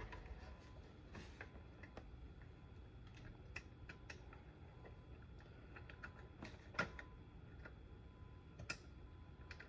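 Faint, scattered light clicks of small metal parts as nuts are threaded by hand onto the headlight motor's mounting bolts, with two sharper clicks about seven and nine seconds in.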